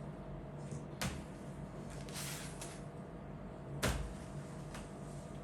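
Handling noises as a laptop is moved about, ready for its back cover to come off: two sharp knocks, about a second in and again near four seconds, with a brief rustle between them, over a steady low hum.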